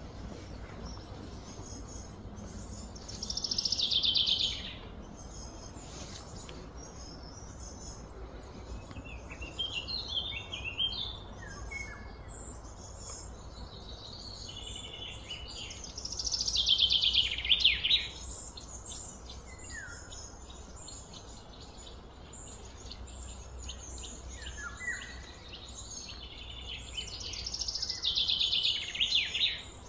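Birds calling outdoors: three loud, rapid trills, each falling in pitch, about twelve seconds apart, with softer chirps between them over a steady low hum.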